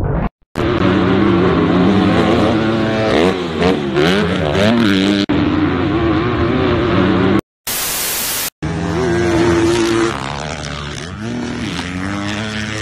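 Dirt bike engine revving hard under throttle, its pitch repeatedly rising and falling through gear changes. It breaks off briefly twice, once with about a second of loud static hiss about eight seconds in.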